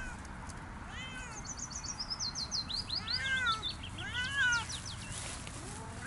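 Siamese cat meowing three times, each call rising and falling in pitch, the last two louder. Behind it a songbird sings a fast run of high notes that step down in pitch.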